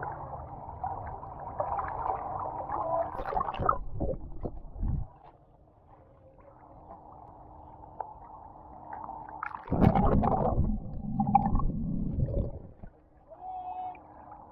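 Muffled pool water gurgling and sloshing, heard through a camera underwater, with a loud low churning about ten seconds in.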